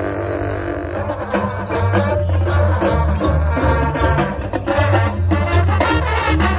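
Marching band playing live: brass and winds over drums and front-ensemble mallet keyboards, with repeated loud low bass notes and quick percussion strokes that pick up about a second in.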